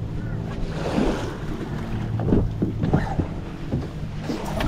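Ford pickup truck engine idling steadily, with wind buffeting the microphone. A click near the end as the driver's door is opened.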